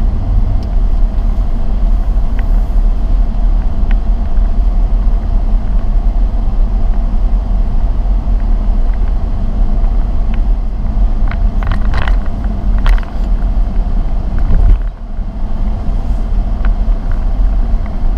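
Car driving slowly over a rough, uneven campground road, heard from inside the cabin: a steady low rumble with scattered knocks and rattles from bumps, thickest about two-thirds of the way through.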